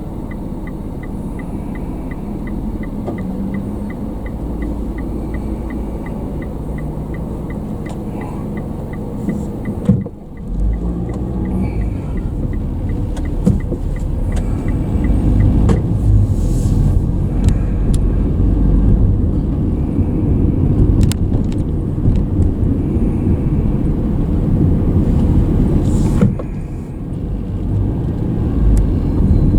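Car driving, heard from inside the cabin: steady engine and road rumble. For roughly the first ten seconds a light, fast, regular ticking runs over it, then about ten seconds in the rumble gets louder and stays so.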